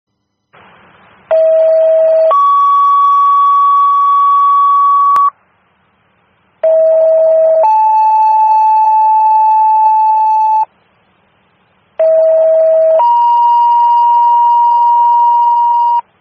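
Fire dispatch radio two-tone sequential paging tones, three pairs in a row: each pair is a short lower tone of about a second, stepping straight up to a longer steady tone of about three seconds, and the second tone's pitch is different in each pair. This is the tone-out that alerts the units' pagers ahead of the dispatch call.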